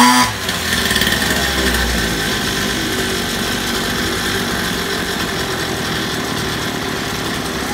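Small engine of an Orion 27 mini dirt bike catching with a loud burst at the very start, then idling steadily.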